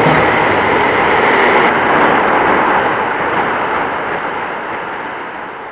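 Strong wind and breaking sea waves making a steady rushing noise, with wind buffeting the microphone; it fades out over the last two seconds or so.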